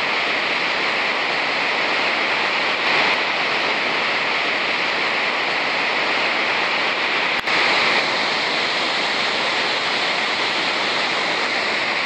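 Montmorency Falls heard close up: a steady, loud, thundering rush of falling water.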